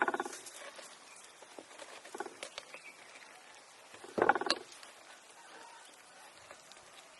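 Two short animal calls, one at the start and a louder one about four seconds in, with a few faint clicks between.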